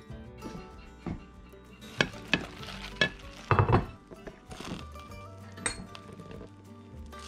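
Metal forks clinking and scraping against a plate while pulling apart tender cooked meat, with a cluster of sharp clinks in the middle, over steady background music.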